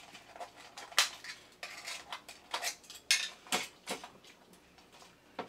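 Scattered light metallic clicks and clinks of a tin toy robot's sheet-metal body being handled, with its tabs being worked free. The sharpest clicks come about a second in and in a cluster about three to four seconds in.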